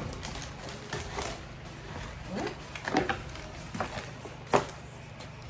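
Scattered light clicks and knocks of products and packaging being handled and set down, the loudest one near the end, over a steady low hum.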